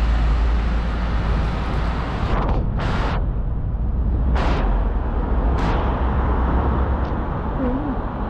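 Road traffic on a busy city street: a steady low rumble as a truck and cars drive past, with three short hissing whooshes about three, four and a half, and five and a half seconds in.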